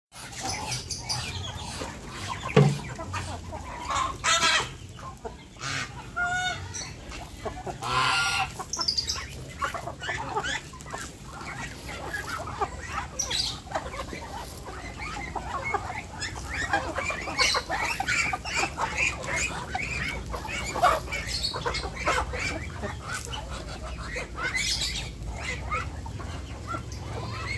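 Mixed flock of chickens, ducks and geese clucking and calling as they crowd around feed, with a few louder calls standing out in the first part and dense, overlapping clucking later on.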